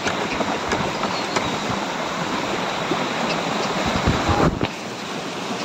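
Steady rushing of wind and surf at a beach, with a low rumble of wind buffeting the microphone about four seconds in; the sound changes abruptly just after.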